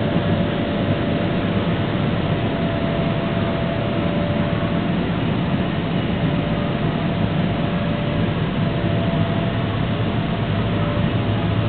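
Steady drone of the electric air blowers that keep inflatable bounce houses and slides inflated: an even rush of air with a constant hum, unchanging in level.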